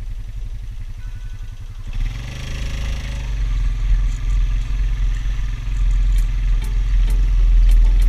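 Small engine of a farm motorbike running steadily. The note picks up about two seconds in and grows louder toward the end.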